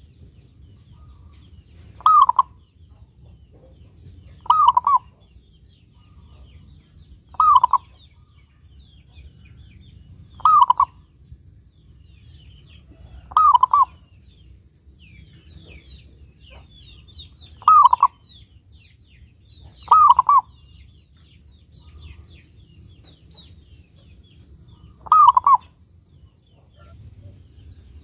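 Zebra dove (perkutut) calling: eight short cooing phrases, each under half a second, repeated every two to three seconds, with a longer pause in the middle. Fainter, higher twittering of small birds runs in between.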